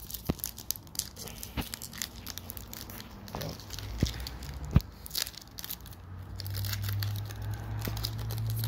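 Foil wrapper of an Upper Deck hockey card pack being torn open and handled, crinkling and crackling, with a few sharper clicks. A low steady hum comes in near the end.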